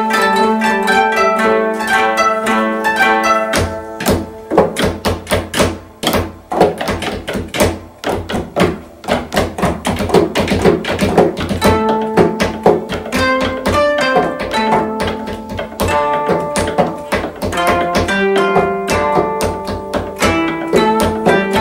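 Koto ensemble playing: plucked notes ringing over one another, then from about four seconds in a stretch of rapid, hard plucking with low thuds under it. The ringing melody returns about twelve seconds in.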